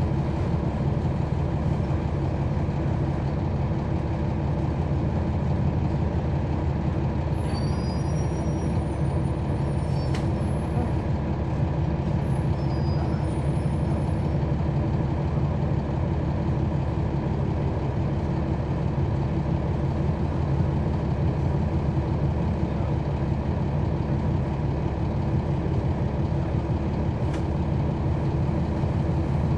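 Cabin sound of a 2011 NABI 40-SFW transit bus with its Cummins ISL9 diesel engine running steadily. Faint high-pitched squeaks come and go a few seconds in.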